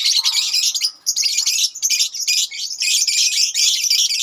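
A colony of lovebirds chattering, a dense stream of overlapping shrill chirps with a brief pause about a second in.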